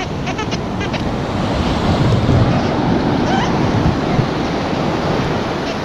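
Sea surf washing up over the sand, a steady rush that swells loudest about two seconds in. A few short high chirps sound in the first second.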